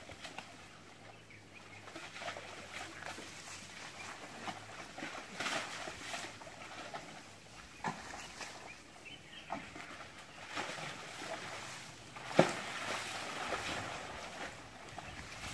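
Elephants wallowing in a mud pond, with irregular sloshing and splashing of wet mud, and one sharp knock about twelve seconds in.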